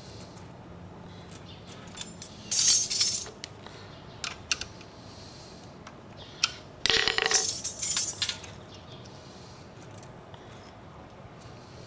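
Metal hand tools clicking and rattling against the rocker arm hardware of a Kohler V-twin while its valve clearance is set. The clicks come in two short bursts, about two and a half and seven seconds in, the second with a brief metallic ring, and a few single clicks between.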